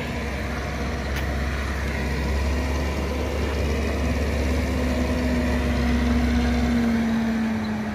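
A heavy diesel engine running close by: a low drone that grows louder for several seconds and stops about seven seconds in, with a tone that falls slightly near the end.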